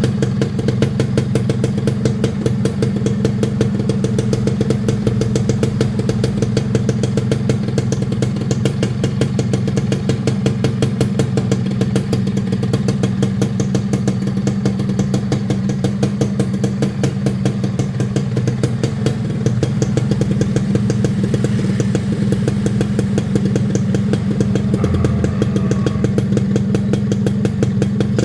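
The stock two-stroke single-cylinder engine of a 2001 Suzuki Satria R motorcycle idling steadily, with a fast, even firing pulse.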